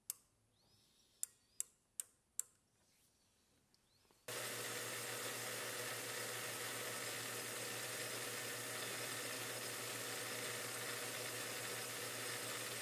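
Four faint clicks as a micrometer is set on a small brass part. About four seconds in, a small metal lathe starts a steady run with an even hum, turning brass hex bar down to a small diameter.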